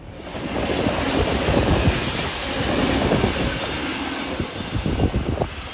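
Sydney Trains V-set double-deck intercity electric train running past close by, a steady rumble of wheels on rail. Near the end come a few sharp clacks as the wheels cross rail joints.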